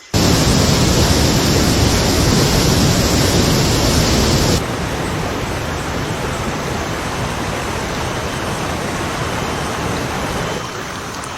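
Loud, steady rushing of water, with no distinct strokes or tones. About four and a half seconds in it drops abruptly to a quieter, duller rush.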